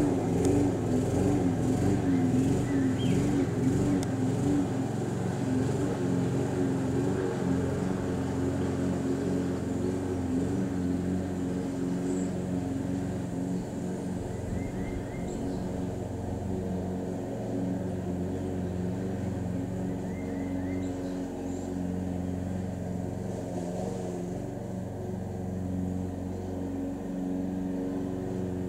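A motor or engine running steadily with a low hum, its pitch wavering for the first few seconds and then settling.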